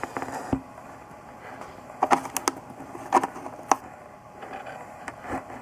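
A handful of short, sharp clicks and taps over a low steady hiss, several bunched together about two seconds in and another pair a little after three seconds.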